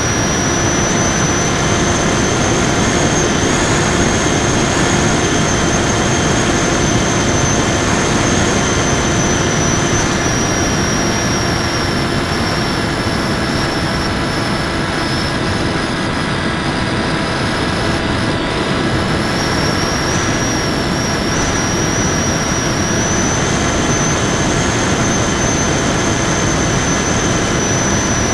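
Onboard sound of a Raptor FPV model plane's electric motor and propeller running steadily in flight: a high whine over a dense rushing noise, its pitch dipping a little around the middle and rising again near the end.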